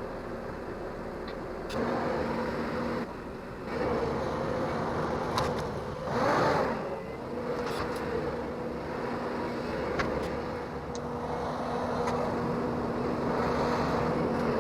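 Diesel engine of a Bobcat T770 compact track loader running steadily under working load, with a brief swell and dip in pitch about six seconds in and a few sharp knocks.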